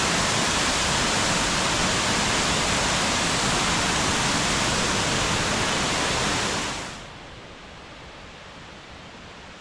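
Waterfall plunging into a rock pool: loud, steady rushing water. About seven seconds in it drops off sharply to a much quieter, steady rush of water.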